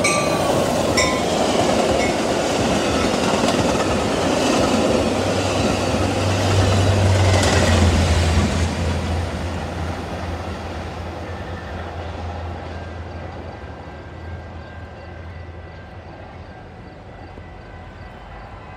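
Metra push-pull commuter train passing at speed without stopping: the cab car and bilevel coaches rush and clack over the rails. The diesel locomotive pushing at the rear then goes by with a low steady engine hum, loudest about eight seconds in, and the sound fades as the train recedes.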